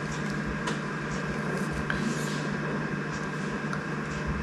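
Room tone: a steady low hum with a few faint light ticks.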